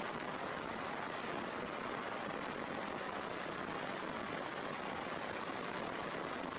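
Steady rain falling on wet stone, an even hiss with no let-up.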